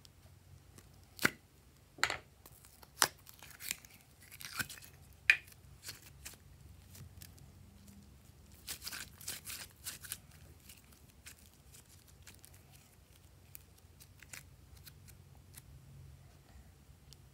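Glossy slime being handled and pulled out of its plastic jar by hand: a string of sharp sticky pops and clicks over the first five seconds, a cluster of soft crackling pops about nine seconds in, then only faint ticks.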